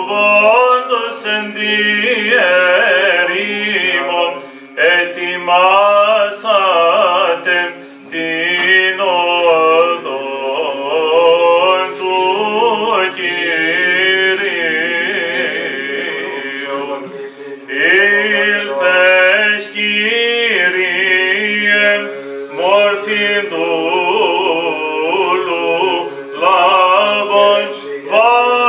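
Byzantine chant: a male voice sings an ornamented, melismatic hymn line over a low held drone note (ison) that shifts pitch now and then.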